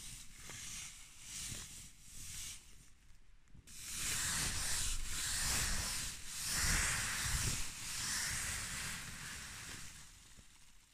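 Frozen, frost-covered fabric rustling and crinkling as it is handled, in short bursts at first and louder and continuous from about four seconds in.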